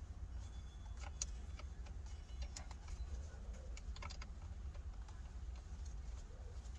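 Scattered light clicks and taps, a dozen or so at uneven intervals, as the steering wheel's retaining bolt is put back on by hand.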